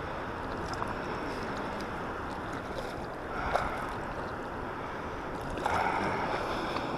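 Steady rushing of water, with two brief swells in level and a few faint clicks.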